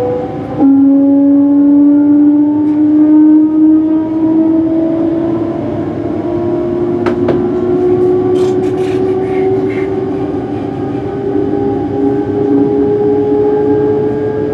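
Traction motors of a Hitachi-built Class 385 electric multiple unit whining as the train accelerates, heard from inside the carriage: a tone that climbs steadily in pitch, drops suddenly to a lower note about half a second in, then keeps rising. A few short clicks come around the middle.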